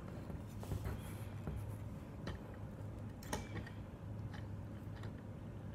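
Light plastic clicks and small knocks as a Lego car is picked up and turned over in the hand, over a steady low hum.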